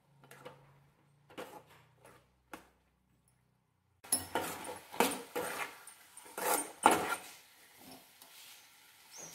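Metal spoon scraping and knocking against an aluminium kadai while okra is stirred: a few faint scrapes at first, then a louder run of scrapes and clinks from about four seconds in that eases off near the end.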